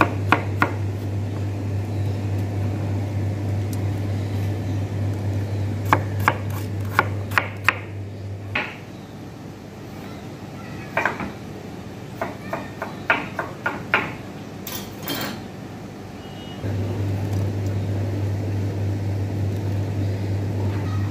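Knife chopping watermelon on a plastic cutting board: sharp knocks coming in short runs, a few early on, a quick run around the middle, and more spread through the later part. A steady low hum runs under the chopping but drops out for several seconds in the middle.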